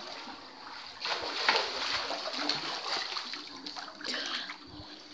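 Water splashing in a swimming pool as a swimmer moves through it, in irregular splashes starting about a second in.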